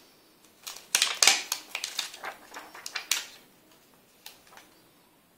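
Plastic protective film being peeled off a replacement phone screen, a run of irregular crackles and clicks for about three seconds, then a few faint ticks.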